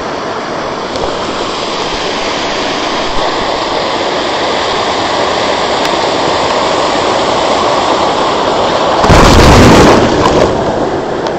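Waterfall's falling water, a loud steady rush. About nine seconds in, a louder blast of noise lasts about a second.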